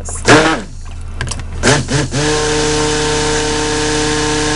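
A 200-watt immersion (stick) blender switched on about two seconds in, running with a steady hum and hiss as it blends coloured soap batter.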